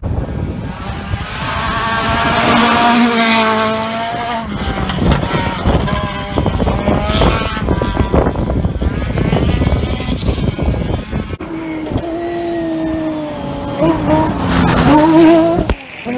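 Rally cars at full throttle on a gravel stage passing one after another, their engines revving up and down in pitch through the gears. The sound cuts off abruptly near the end.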